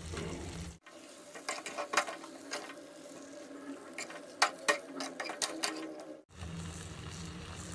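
Metal spatula stirring a thick chicken curry in a metal pot, scraping and clicking against the pot's sides in a string of sharp knocks. A steady low hum sits under the stirring at the start and comes back near the end.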